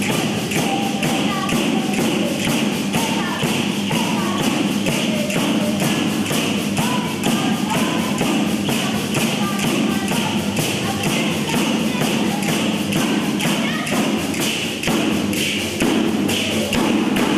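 Two tammorre, large frame drums with jingles, beaten in a fast, steady beat for a tammurriata dance, with a woman's voice singing over the drumming.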